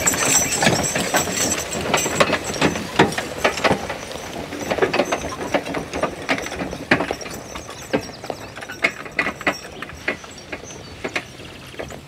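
Team of draft horses pulling a log-loaded wagon past: irregular clanks, knocks and rattles from the wagon, its load and the harness, with the horses' footfalls. Loudest in the first few seconds, then fading as the team moves away.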